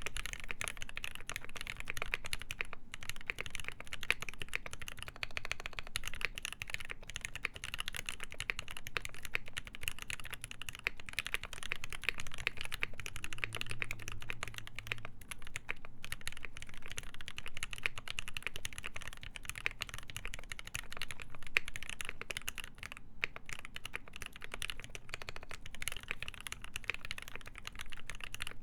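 Continuous typing on a KBD8X MKII mechanical keyboard with lubed ZealPC Tealios linear switches, a full brass plate, GMK keycaps and foam inside the case. It is a dense run of keystroke clacks with a few brief pauses.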